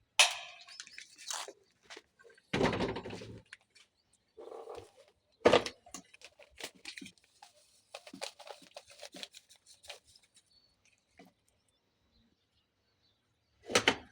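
Irregular knocks, clicks and scraping handling noises, with louder sudden knocks near the start, about five and a half seconds in and near the end, and a short quiet spell just before the last one.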